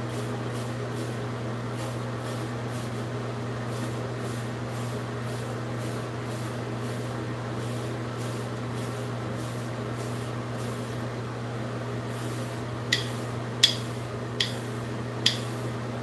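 A hard hair brush swept repeatedly over short waved hair, its bristles swishing about two to three strokes a second over a steady low hum. Near the end come four short, high pings.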